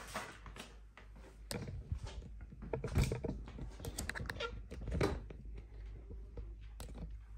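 Irregular knocks, taps and rustles of handling: the camera being picked up and moved, and cardboard boxes being set down on the worktop. The loudest knocks come about three and five seconds in.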